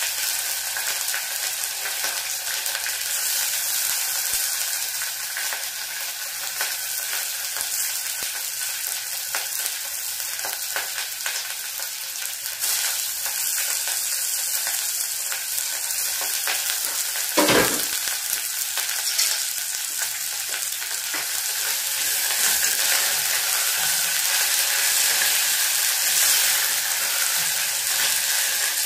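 Washed omena (small silver fish) sizzling in hot cooking oil in a sufuria as they are stirred, the sizzle growing somewhat louder in the second half. A single sharp knock, the loudest sound, comes about two-thirds of the way through.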